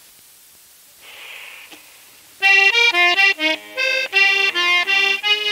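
After a quiet pause with a brief faint hiss, an accordion starts about two and a half seconds in, playing the introduction to a Swedish folk song: a quick melody in short notes over chords.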